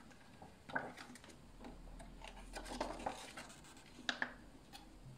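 A paper picture-book page being turned and smoothed flat by hand: faint rustling and rubbing of paper, then a couple of light sharp taps about four seconds in.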